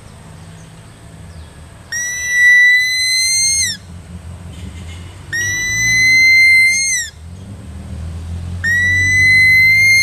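A small mouth-blown whistle call, the whistle piece from a child's toy fan, blown three times as a deer (rusa) call. Each is a long high whistle of nearly two seconds that rises slightly and falls off at the end.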